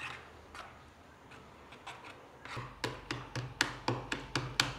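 A cake mould full of batter being tapped against the countertop to knock out air bubbles. Only a few faint clicks at first, then from about halfway a quick run of sharp taps, roughly four or five a second.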